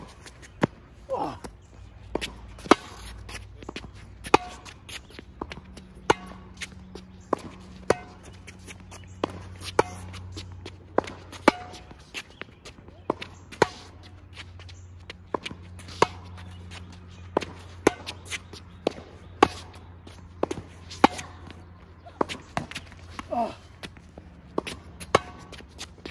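Tennis volley rally: a sharp pop of ball on racquet strings about every second, mixed with ball bounces on the hard court, over a low steady hum.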